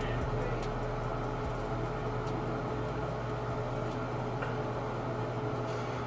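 Steady hum and hiss of room background noise, with a constant mid-pitched tone over a low hum.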